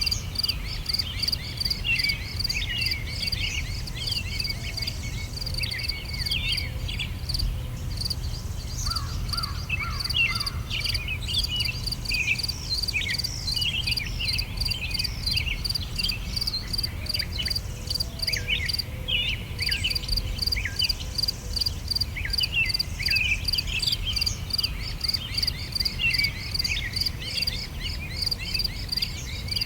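Summer ambience: many small birds chirping with short, quick calls throughout, over a steady, high, fast-pulsing insect trill and a low steady rumble underneath.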